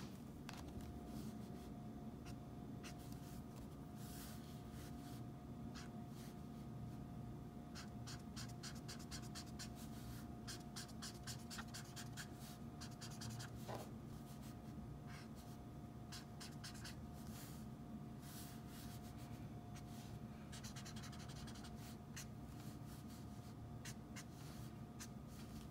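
Ohuhu alcohol marker strokes on sketchbook paper: faint, quick scratchy strokes in runs, with short pauses between them.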